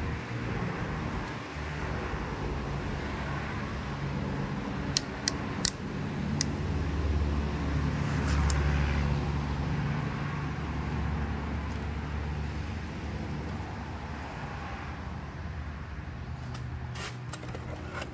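Low rumble of road traffic that swells between about seven and nine seconds in, with a few short, sharp clicks around five to six seconds in and again near the end.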